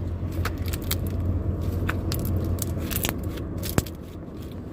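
Cream cheese slime being stretched and squished in the hands, giving scattered small clicks and crackles, with one sharper click near the end. A steady low hum runs underneath.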